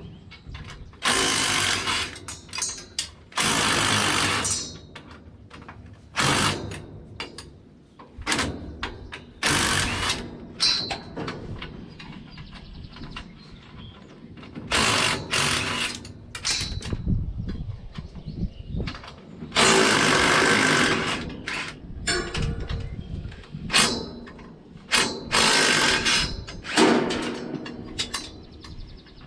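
A power tool working bolts loose on steel baler parts, in repeated bursts of about a second, with metal clanks and rattles between.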